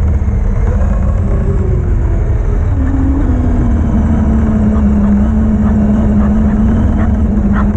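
Traxxas X-Maxx electric RC monster truck driving fast over grass, heard from a camera mounted on the truck: a steady motor and drivetrain whine over a heavy rumble. The whine steps up in pitch about three seconds in and then holds steady.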